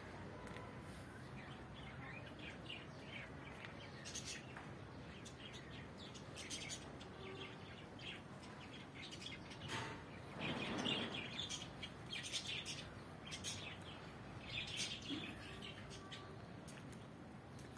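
Small birds chirping on and off, short high calls scattered throughout, over a faint steady background noise. About ten seconds in there is a brief, louder rush of noise lasting a second or so.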